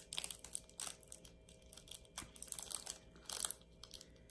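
Light, irregular clicking and rattling of small plastic diamond-painting drills handled in a plastic drill tray.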